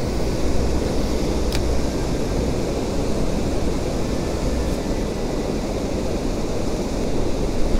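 Steady low rush of river water pouring over a weir, with a couple of faint ticks.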